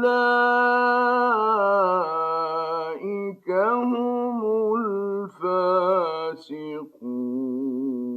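A male Quran reciter chanting a phrase in melodic tajweed style, drawing out long held notes with wavering ornaments, with brief breaths between the parts of the phrase.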